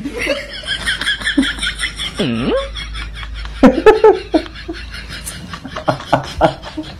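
A man laughing in short, broken bursts of giggles and snickers, loudest about halfway through.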